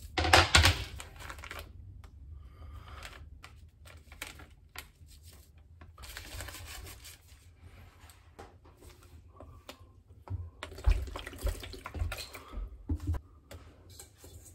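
Food-prep handling at an Instant Pot's stainless steel inner pot: a loud, wet rush as chunks of raw beef slide off a cutting board into the pot, then scattered rustling as seasoning and a bouillon cube are unwrapped and added, and a few dull knocks near the end as lemongrass stalks go in.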